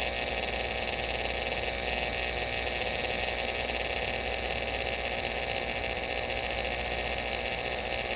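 Steady electrical mains hum with hiss, unchanging throughout.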